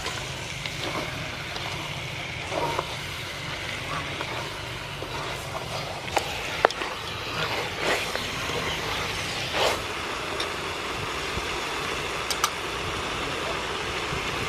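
Chicken pieces frying in hot oil and curry paste in a pot, a steady sizzling hiss, with a few sharp knocks of a spoon or spatula against the pot as they are stirred.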